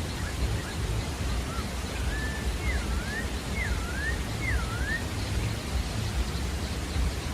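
Pale-breasted thrush (sabiá-da-várzea) whistling a short phrase: a couple of soft notes, then three clear dipping whistles in a row, each falling then rising, about a second apart. A steady low background rumble runs underneath.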